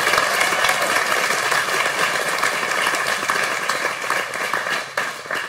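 Church congregation applauding, the clapping fading away near the end.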